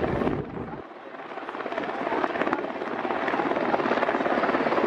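Formation of helicopters flying overhead, their rotors making a steady thrum. The sound dips about a second in, losing its low end, then builds back up.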